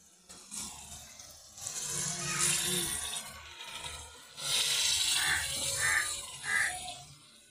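Raw chicken pieces sizzling in hot oil and onions in a metal pan, stirred with a spatula that scrapes against the pan. The hiss comes in two surges, with a few short squeaks from the scraping in the second.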